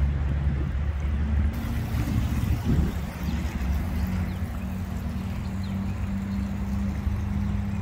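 A car's engine running steadily under tyre noise on a wet road, heard from inside the moving car.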